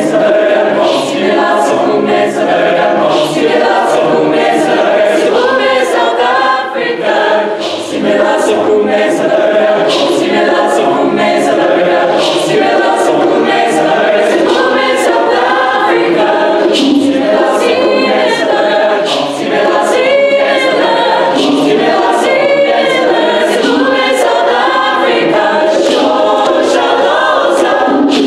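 Mixed-voice high-school chamber choir singing a cappella, many voices in harmony, with sharp accents about every 0.7 s.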